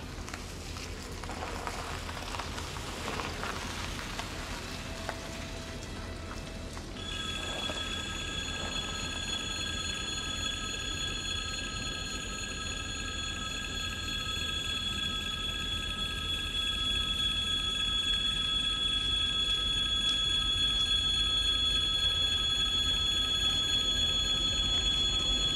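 Tyres on a wet, potholed road as a car drives over the level crossing. About seven seconds in, the crossing's electric warning bell starts ringing steadily, signalling an approaching train, while a low rumble grows louder toward the end.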